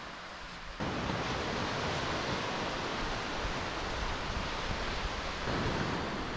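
Ocean surf washing onto a beach: a steady rushing noise that jumps louder about a second in.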